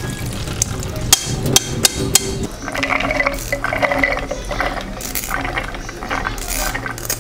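Boiled mung beans draining in a metal mesh strainer over a steel sink, with sharp clinks of the pot and strainer. From about two and a half seconds in, a spoon scrapes the beans out of the strainer into a plastic bowl.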